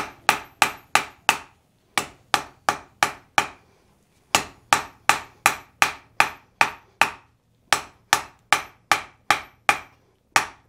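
Hammer blows on red-hot iron on the anvil, about three a second, coming in four runs with short pauses between them. This is the steel wedge for the peen being driven into the split wrought iron and forge-welded in place.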